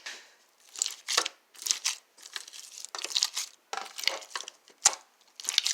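Slime being squished and worked by hand, making irregular short crackling, squelching bursts with a couple of sharp pops near the end.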